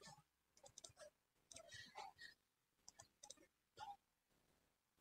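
Faint, scattered clicks of a computer mouse and keyboard over near silence.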